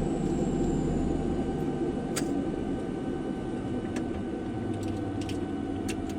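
Turboprop engines of a Cessna 441 Conquest (Garrett TPE331s) running at low power. It is a steady drone with a thin whine that slowly grows quieter, and a few light clicks.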